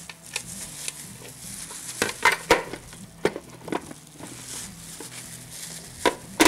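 Glass lid knocking and scraping against the rim of a stainless steel steamer pot in a run of irregular clicks and clanks as it is pressed down; it will not seat because a whole fish inside is too big for the pot.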